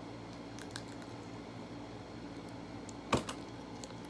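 A steady low hum with a few faint ticks, and one sharper click or tap about three seconds in.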